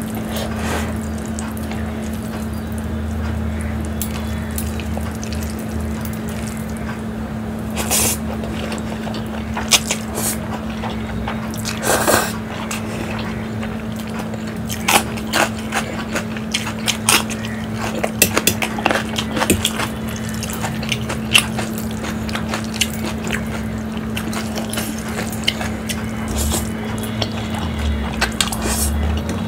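Close-miked eating of Maggi instant noodles: wet chewing and slurping mouth sounds, with many short sharp clicks of a steel fork against a steel plate, over a steady low hum.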